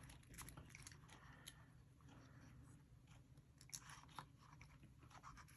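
Near silence with a few faint, small clicks of plastic parts being handled as a servo saver is fitted onto a servo's output spline.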